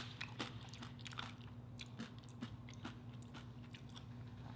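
Close-miked chewing of crunchy tortilla chips: scattered faint crackles and clicks, the sharpest right at the start. A steady low hum runs underneath.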